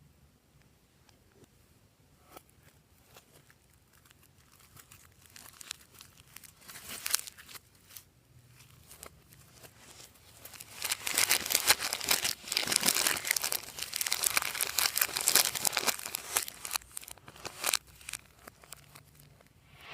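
Crinkling, crackling handling sounds of slime and plastic piping bags being worked by hand. Sparse faint clicks at first, then a loud, dense stretch of crackling in the middle before it thins out again.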